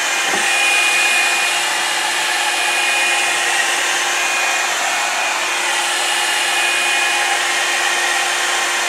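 Revlon One-Step Hair Dryer and Volumizer running steadily on its low setting while drying damp hair: a constant rush of air with a steady motor hum and a faint high whine.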